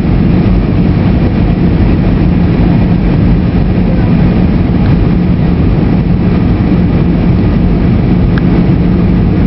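Cabin noise of an Airbus A320-family jet airliner on descent: a loud, steady roar of engines and rushing air, with a steady low hum beneath it.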